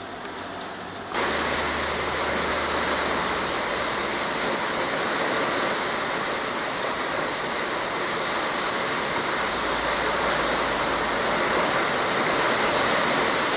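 Small hail falling, a dense, steady hiss of many hailstones striking the ground; it jumps louder about a second in.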